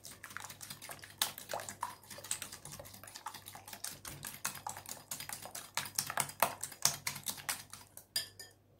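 Wire coil whisk beating eggs and oil in a glass bowl: rapid, uneven clicking and tapping of the wire against the glass, stopping near the end.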